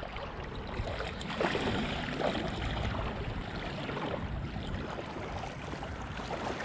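Shallow water sloshing and lapping, with a few short splashes, under light wind noise on the microphone.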